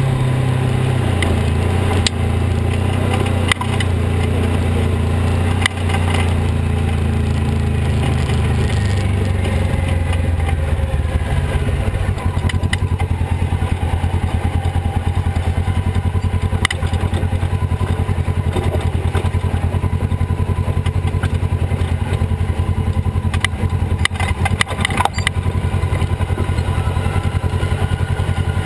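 Polaris RZR XP 900 side-by-side's twin-cylinder engine running while the machine is under way, heard from the cockpit. Its pitch drops about a second in and again around twelve seconds, after which it runs at low revs with a fast, even pulsing, and there are scattered knocks and clatter as it crawls over rocks.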